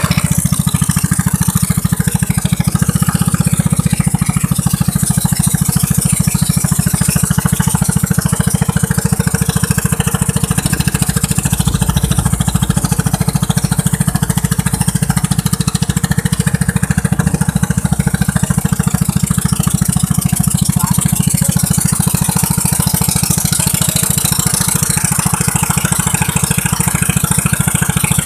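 Boat engine running steadily as the boat gets under way: a loud, even low drone with a fast, regular firing pulse and no change in speed.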